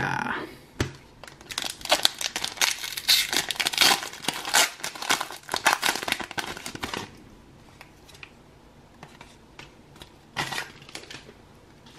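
Foil wrapper of a Pokémon trading card booster pack being torn open and crinkled, with dense crackling for about the first seven seconds. Then only soft, scattered rustling as the cards are handled.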